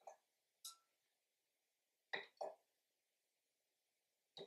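Faint clinks of kitchen tongs tapping against glass, about five short taps with gaps between, one ringing briefly, as vanilla beans are lifted from a glass measuring cup into a glass bottle.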